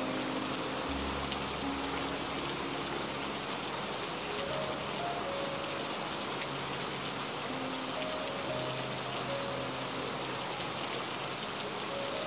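Steady rain ambience, an even patter and hiss, with soft, slow held music notes over it.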